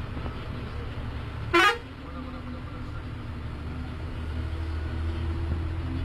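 Tourist bus running steadily with a low engine hum heard from the driver's cab, and about a second and a half in, one short, loud blip of its air horn that sweeps quickly upward in pitch.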